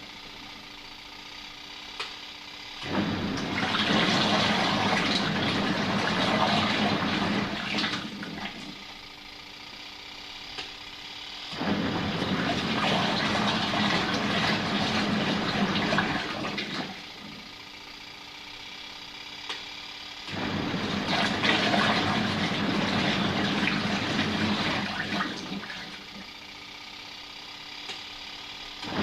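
Caravan twin tub washing machine's wash tub churning water and clothes in bursts of about five seconds with pauses of about three seconds between them, the wash motor starting and stopping as the cycle runs.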